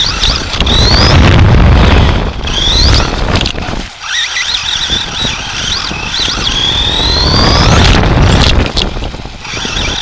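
Motor whine of a Team Associated SC10 RC short-course truck, heard from a camera mounted on the truck, rising and falling in pitch several times as it speeds up and slows, with a long rising whine near the end. Under it, wind buffeting the microphone and rumble from the chassis running over grass and pavement, with a brief lull about four seconds in.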